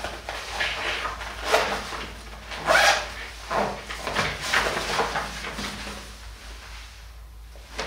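A CoolChange fabric bicycle bag being handled at its side pockets: a series of short rustling, zipping sounds about a second apart that die away near the end.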